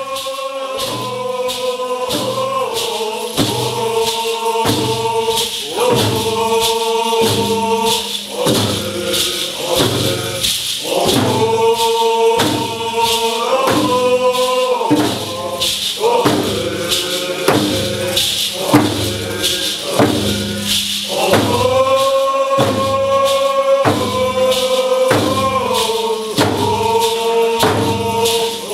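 Traditional Coast Salish song: a group of voices chanting in unison over a steady drumbeat.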